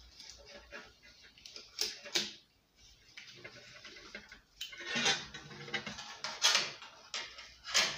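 Plastic recoil-starter pulley and its coiled spring, from a Subaru lawnmower engine, being turned by hand while the spring is wound back in: scattered sharp clicks and light scraping, with two longer scraping stretches about five and six and a half seconds in.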